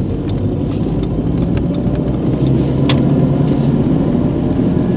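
Jeep Cherokee driving on the road: steady engine and road noise, growing a little louder about halfway through, with a single sharp tick near the middle.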